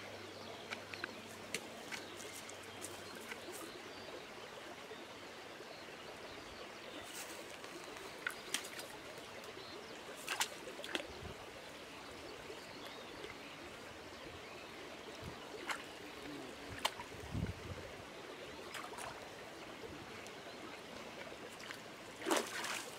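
Low, steady trickle of a small stream, with scattered small splashes as a dog steps and wades through the shallow water.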